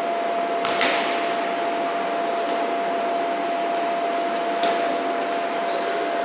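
Steady whoosh of an electric blower fan keeping an inflatable dodgeball arena inflated, with one constant tone in it. A rubber dodgeball smacks sharply on the concrete floor about a second in and again at about four and a half seconds, with a few lighter taps between.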